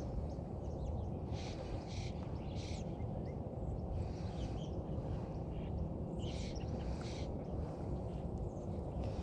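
Birds calling in short, repeated bursts about every second, over a steady low rushing background noise.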